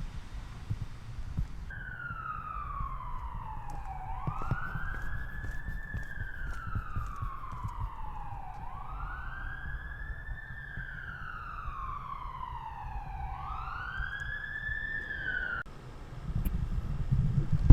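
Emergency vehicle siren wailing in slow sweeps, falling and rising in pitch about three times. It starts and cuts off abruptly, over a steady low rumble.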